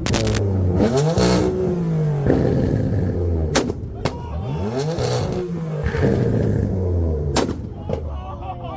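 Performance car engine revved hard twice over a low idle, each rev rising and falling in pitch, with loud exhaust pops and bangs cracking between the revs.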